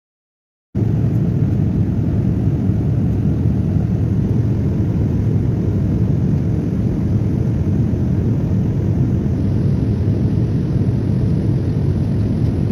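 Steady low rumble of jet airliner cabin noise in flight. It starts abruptly about a second in after digital silence.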